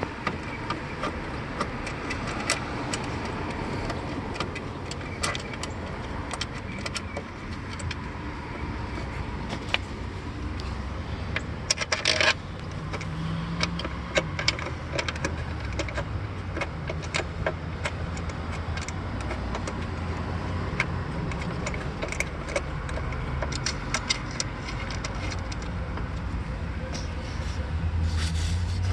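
Scattered metal clicks and clinks of bolts and hand tools being handled as PCM mounting bolts are threaded in by hand, with a denser run of clinks about twelve seconds in. A steady low rumble sits underneath.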